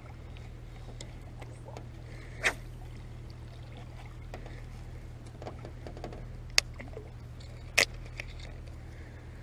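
A small hooked bass reeled in to the side of a boat on a spinning reel: faint water splashing and light clicks, with three sharp short pops about two and a half, six and a half and eight seconds in, over a steady low hum.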